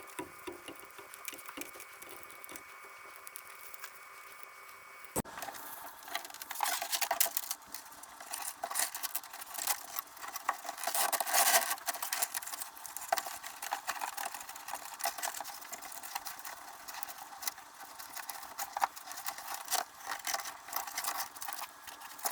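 Faint steady hum, then from about five seconds in a patter of many small clicks and taps as parts are handled and fitted by hand.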